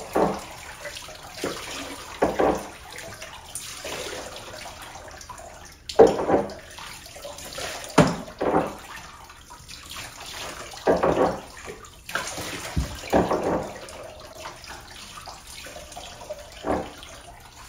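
Bathwater splashing and sloshing in a tub as a Doberman puppy standing in it is washed by hand, in separate bursts every second or two over a faint steady water rush.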